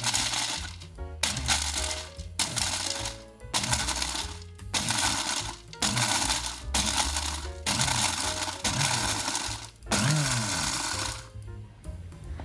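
Electric blender's small grinder cup pulsed in about ten short bursts, each under a second, with the motor whirring and prawn crackers rattling against the plastic as they are crushed into crumbs. Background music plays underneath.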